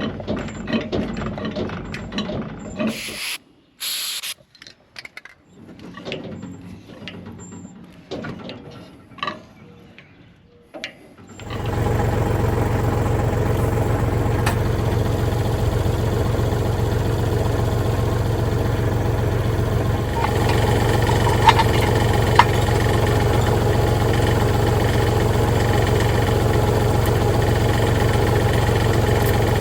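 Irregular clicks, rubs and knocks of hand work on metal parts, then, about eleven seconds in, a tractor engine comes in abruptly and runs steadily at idle, with two sharp clicks about ten seconds later.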